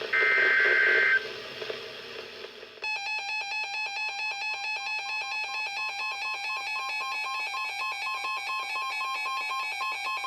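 Two short buzzing bursts of EAS/SAME digital data tones, about a second each, the end-of-message bursts of a NOAA Weather Radio alert. From about three seconds in, weather radios' alert alarms sound together as a fast, steady, pulsing beeping in several pitches.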